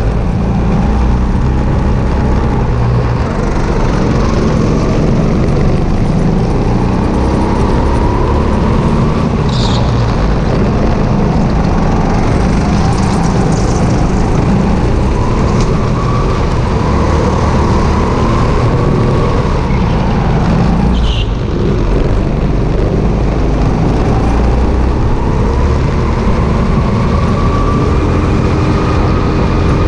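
Sodi RT8 rental go-kart engine running hard, heard from a camera mounted on the kart's chassis, its pitch rising and falling again and again through the corners over a heavy rumble. Two brief high squeals stand out, about ten seconds in and about twenty-one seconds in.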